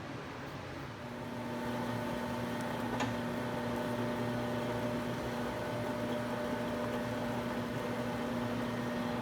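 Electric motor running with a steady hum that starts about a second in, with a single sharp click about three seconds in.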